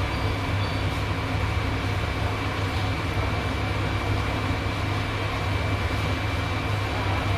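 Hot air rework station blowing steadily, heating solder ball paste on an eMMC chip to reflow it into solder balls, with a low hum and a thin steady high whine.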